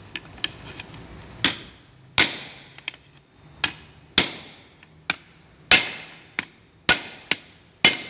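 Steel hammer blows driving a lip-type oil seal into its flanged steel housing, about a dozen irregular strikes, the heavier ones ringing briefly as the seal is worked down until it seats against its stop.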